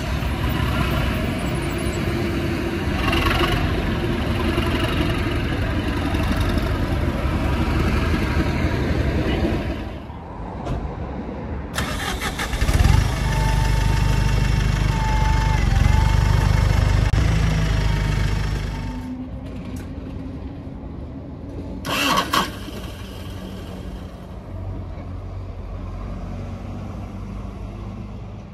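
Diesel engines in three takes: a Class 37 diesel locomotive's engine running steadily, then a single-deck bus's diesel engine starting with a sudden loud burst and running with a steady whine above it. Then a second single-deck bus's diesel engine idles more quietly, with a short loud burst a few seconds in.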